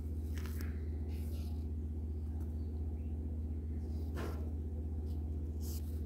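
A steady low hum throughout, with a few faint, brief rustles as crochet yarn and thread are handled, the clearest about four seconds in.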